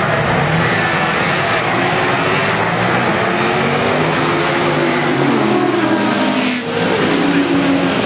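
A pack of racing sports and saloon cars on the move, many engines running hard at once with overlapping notes. Several notes drop in pitch as cars go by.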